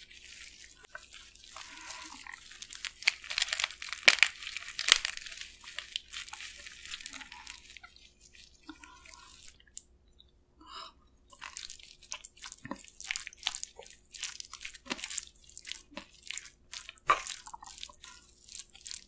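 Close-up eating of spicy marinated raw crab (yangnyeom gejang): crunching and sticky chewing on the sauced crab. About halfway through, a brief dribble of sesame oil poured from a bottle, then a spoon mixing sauced rice in a bowl, with scattered clicks and squelches.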